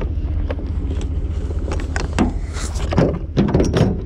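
Low rumbling wind and handling noise on a body-worn camera while canoe paddles are carried, with scattered small knocks and clatter. Near the end come louder knocks and bumps as the paddles are set into a pickup truck bed.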